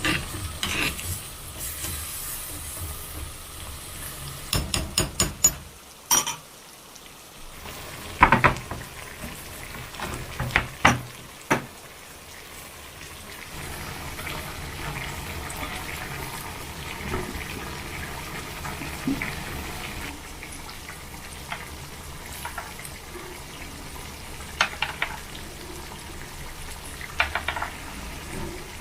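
Kitchen cooking sounds: a run of sharp clicks and several loud knocks of utensils on cookware in the first half, then a steady hiss of food cooking with a few light clinks.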